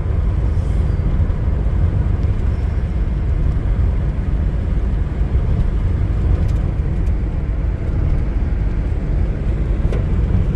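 A 2000 Nissan Frontier XE pickup with a 2.4-litre KA24DE four-cylinder engine driving along, the engine and road noise making a steady low rumble.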